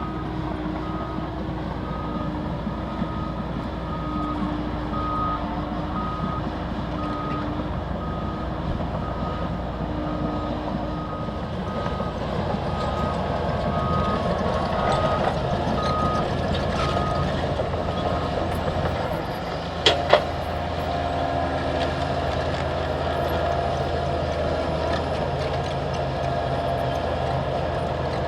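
Liebherr crawler dozers working, their diesel engines running steadily under a high reversing alarm that beeps about every two-thirds of a second for most of the first seventeen seconds. A lower, slower alarm beeps alongside it for the first ten seconds or so. About twenty seconds in there is a sharp double clank of metal, and after it a steady whine runs over the engine.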